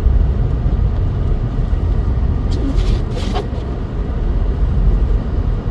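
Steady low rumble of a vehicle driving on a snowy road, heard from inside the cabin, with a couple of brief hissing swishes about three seconds in.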